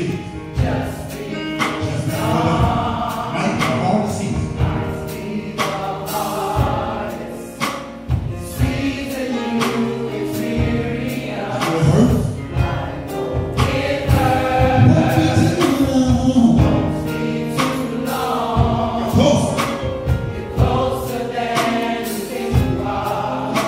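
Gospel choir singing in full voice with a male lead vocalist, over band accompaniment with a steady drum beat.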